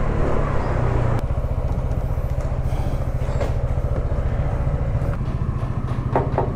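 Honda ADV 160 scooter's single-cylinder engine, at low speed and then settling to a steady idle about a second in. A few sharp knocks come near the end.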